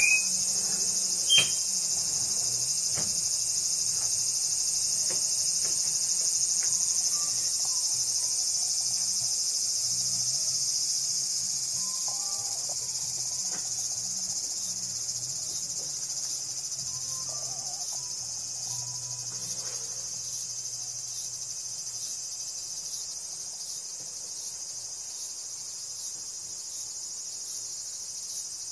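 Steady, high-pitched chorus of insects singing, slowly getting quieter through the second half. A regular chirp about once a second joins it near the end. Two brief clicks come in the first two seconds.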